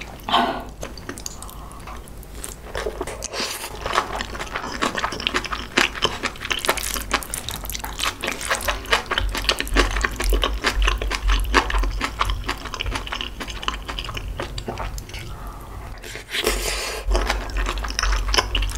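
Close-miked wet chewing and smacking of a mouthful of spicy kimchi tuna rice, a dense run of small mouth clicks, with a spoon scooping rice from a wooden bowl.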